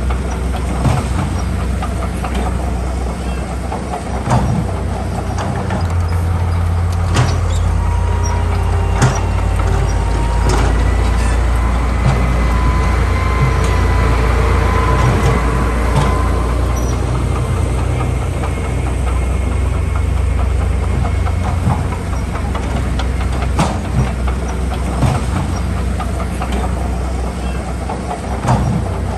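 Heavy diesel earthmoving machinery running with a deep, steady engine drone and scattered metallic clanks. A faint thin whine sounds around the middle.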